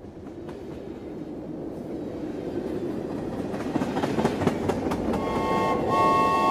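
Toy steam locomotive and cars running on a model track, a clicking rumble that grows steadily louder as the train approaches. About five seconds in, the locomotive's built-in whistle sounds a steady chord-like blast.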